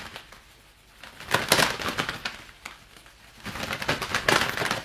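A pair of leather gloves flapped together rapidly as Foley for a bird's wings flapping. There are two flurries of quick soft slaps, one about a second in and another from about three and a half seconds.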